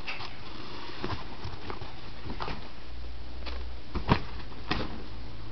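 Scattered soft taps and rustles as a cat bats and grabs at a dangled string toy inside a fabric play cube, with a sharper knock about four seconds in.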